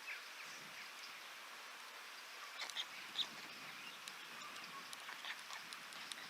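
Outdoor ambience in rain: a steady hiss with scattered sharp ticks of raindrops, the loudest about three seconds in, and faint bird calls in the background.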